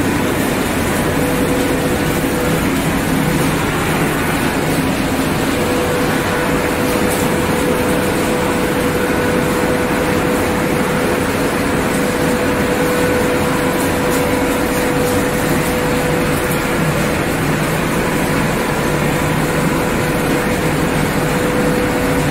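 Refrigerator crushing and separating machinery running steadily: a loud, even machine noise with a steady hum.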